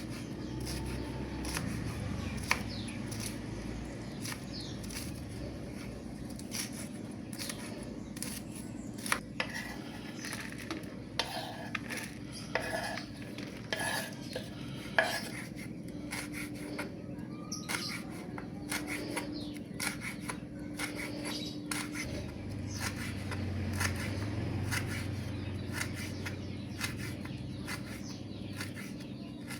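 Kitchen knife and utensils knocking and clinking on a cutting board and dishes in irregular taps as kaffir lime leaves are sliced, over a faint steady hum.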